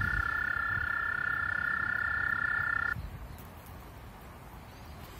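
Toads trilling by the water: two long, steady trills at slightly different pitches sounding together, cutting off abruptly about three seconds in, after which only faint low noise is left.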